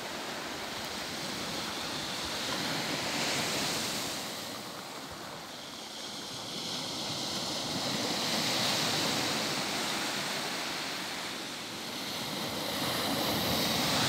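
Sea surf breaking on a beach, the wash swelling and fading about every five seconds.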